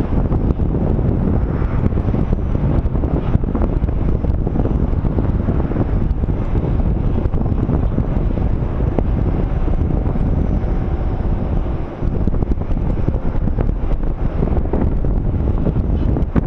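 Wind buffeting a GoPro HERO 3's microphone: a steady, loud, low rush that wavers in strength, dipping briefly about two-thirds of the way through.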